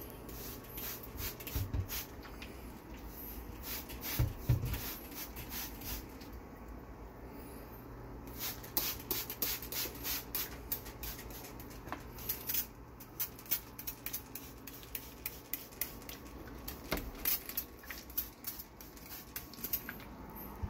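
Hand trigger spray bottle spritzing in many short bursts, often one or two a second, with a few low handling thumps about four seconds in, over a faint steady low hum.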